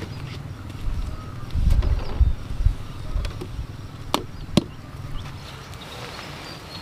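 A woven bamboo basket and tray being handled and set down on the ground: a few dull thuds, then two sharp knocks about half a second apart a little past halfway.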